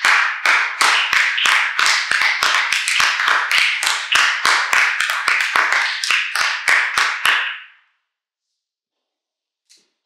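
A small group of people applauding, each clap sharp and distinct. The clapping stops abruptly about seven and a half seconds in, followed by one faint tick near the end.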